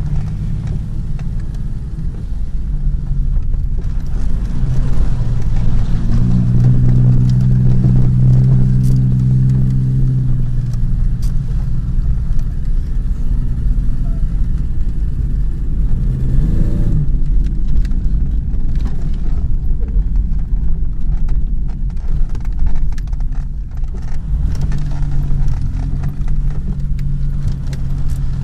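Ford Explorer's engine heard from inside the cabin while driving over rough ground. It works harder for several seconds early on, revs up and drops back briefly just past the middle, then pulls hard again near the end, with scattered knocks and rattles from the cabin over the bumps.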